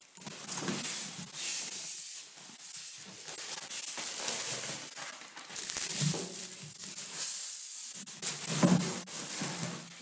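Plastic bag crinkling and styrofoam packing rubbing while a boxed unit is lifted out and unwrapped by hand, in irregular rustles and scrapes that come and go.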